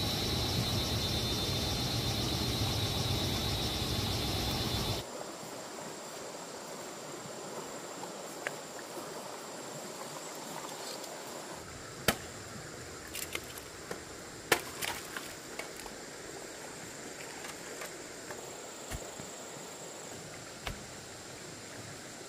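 Rushing water under a steady insect drone, which cuts off about five seconds in. Then a quieter outdoor background follows with a thin, high, steady insect trill and a few scattered sharp knocks.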